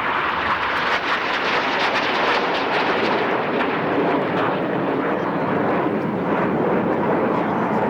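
Red Arrows BAE Hawk jets flying past with a loud, steady jet roar. The high hiss thins after about three seconds as the jets draw away, and the lower roar carries on.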